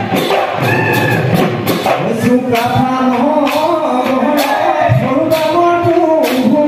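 Assamese Bihu husori music: voices singing a long, gliding melody over a steady beat of drum and cymbal strokes.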